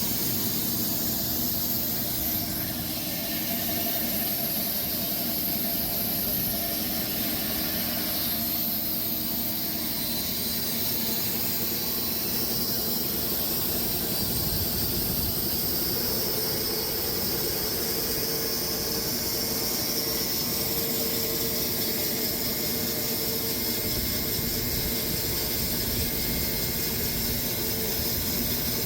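Sawmill running steadily as it mills a Bastogne walnut log into slabs: a steady mechanical drone with hiss.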